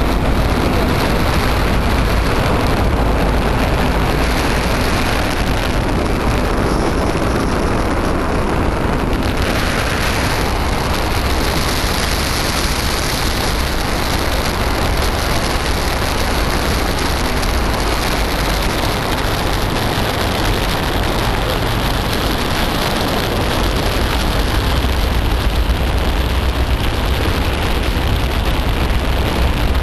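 Steady noise of a moving boat: a low engine rumble under a constant hiss of wind and water rushing past.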